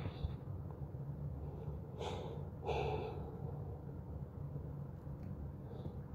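A woman takes two short, heavy breaths about two seconds in, as if composing herself through tears, over a low steady room hum.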